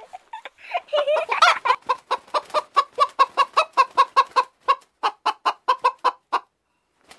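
Domestic hen clucking in a fast, even run of short calls, about five a second, stopping a little before the end.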